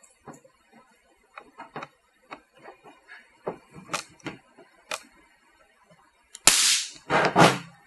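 DF-900 AluSpot capacitor discharge stud welder firing, welding an aluminum stud nail onto an aluminum body panel: loud sharp cracks about six and a half seconds in and again a second later, after light clicks as the gun and nail are set against the panel.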